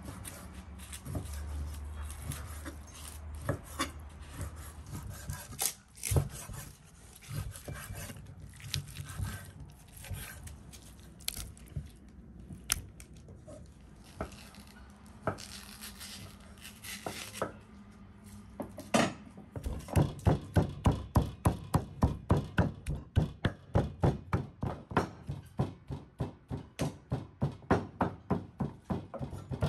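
Kitchen knife cutting food on a wooden board: scattered cuts, scrapes and clicks at first, then about two-thirds of the way in a steady fast run of chops, about three a second.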